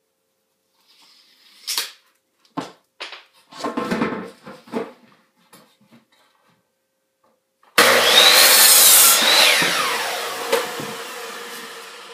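A few knocks as a wooden board is handled into place, then about eight seconds in a Ryobi electric miter saw starts suddenly and its blade cuts through the board. Its whine then falls in pitch and fades as the blade spins down.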